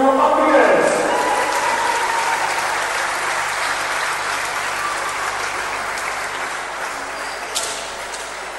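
Crowd applauding in a sports hall, the clapping slowly dying away.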